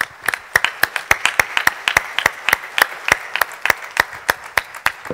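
Audience applauding, with individual sharp claps standing out at about four or five a second over the steady clapping of the crowd.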